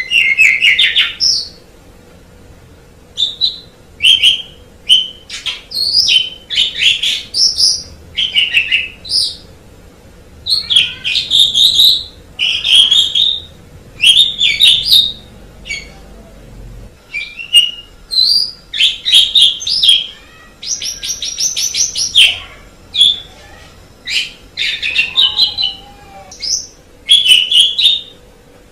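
Pied starling (jalak suren) singing: a long run of varied phrases mixing whistled notes with rapid chattering and rattling runs, each phrase a second or so long with short pauses between.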